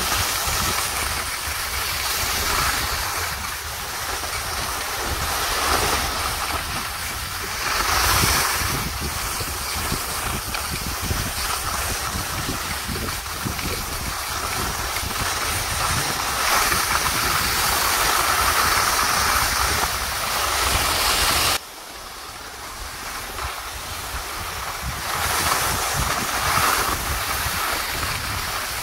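Skis sliding and scraping over snow, mixed with wind rushing over the microphone, as a steady loud rush. The noise drops suddenly about two-thirds of the way through, then builds back up.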